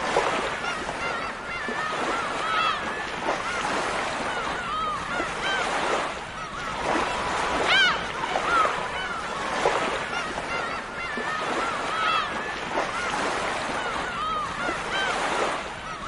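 A flock of gulls calling, many short cries that rise and fall in pitch, overlapping one another, over a steady background rush.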